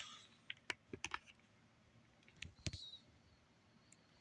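Faint, scattered plastic clicks and taps from a PS5 3D audio headset being handled, with a duller knock about two and a half seconds in.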